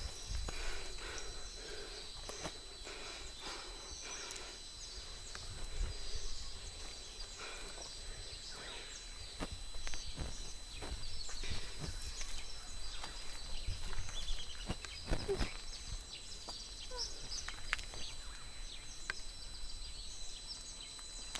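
Quiet rural outdoor ambience: scattered soft footsteps and rustles on a dirt roadside over a steady faint hiss with a thin high-pitched tone.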